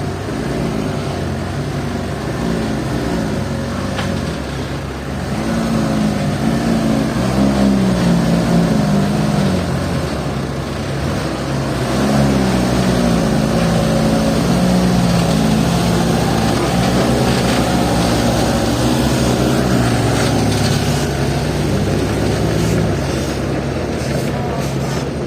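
Heavy diesel machinery engine running under load, its revs rising and falling again and again as it works; it gets louder about five seconds in and again around twelve seconds.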